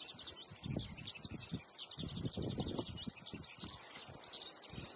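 Many small birds chirping in a steady, quick chatter, with irregular low scuffs and thumps close by.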